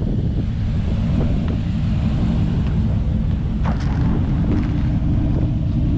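A vehicle running, with wind buffeting the microphone in a steady low rumble; about halfway through a steady engine hum rises above it.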